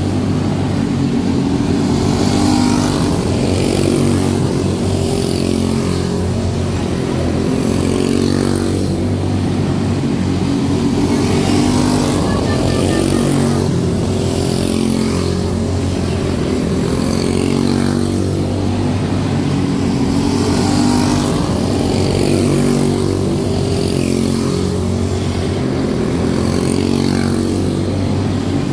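Several quarter midget race cars with Briggs & Stratton Animal single-cylinder four-stroke engines running at racing speed together, a steady mix of engine notes rising and falling in pitch as the cars lap the track.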